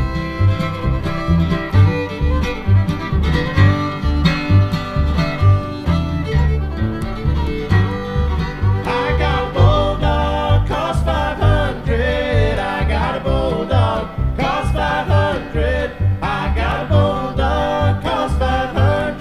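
Live bluegrass trio playing an instrumental passage: fiddle, strummed acoustic guitar and plucked upright double bass keeping a steady bass beat. The melody grows brighter and more prominent about nine seconds in.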